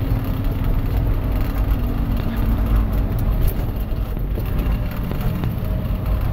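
John Deere 6715 tractor's diesel engine running steadily at working speed, heard from inside the cab, a dense low hum with a few steady low tones.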